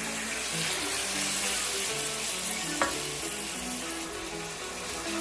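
Thin beef steaks sizzling in hot oil with chopped cherry tomatoes in a stainless steel pan, stirred with a wooden spatula; one sharp tap of the spatula against the pan nearly three seconds in.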